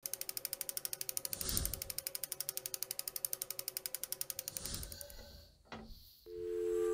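Rapid, even mechanical clicking, about a dozen clicks a second, with two brief swells of noise. It stops about five seconds in, and soft music notes begin near the end.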